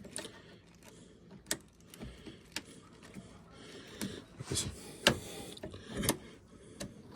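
Irregular sharp clicks and light metallic knocks, about half a dozen spread out, from shifter linkage parts (heim joint and adjustment shaft) being handled and adjusted by hand.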